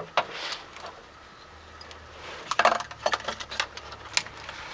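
Scattered clinks and taps of small hard objects being handled, with a short clatter about two and a half seconds in and a few sharp clicks after it.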